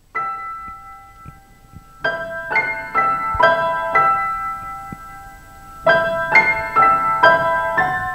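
Background piano music: a chord, then a slow run of about five notes, a pause, and the run again.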